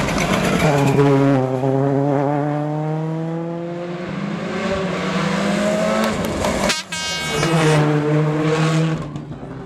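2005 World Rally Car's turbocharged four-cylinder engine at high revs, its pitch climbing slowly for several seconds as the car accelerates. About seven seconds in, the sound breaks off abruptly and a rally car's engine is heard again at steady high revs before fading.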